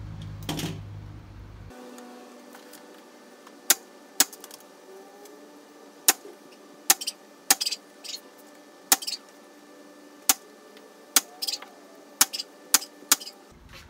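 Pneumatic finish nailer firing about a dozen times at irregular intervals, some shots in quick pairs, driving finish nails through brickmold trim into a door frame.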